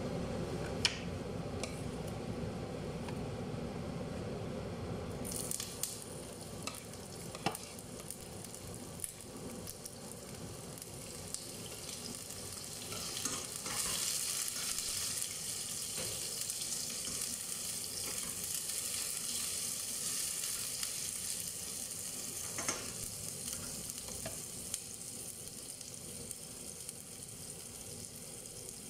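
Chopped onion frying in hot oil in a pan on a gas stove: a steady sizzle that starts about five seconds in and grows louder around the middle, with a few light clicks of a utensil against the pan.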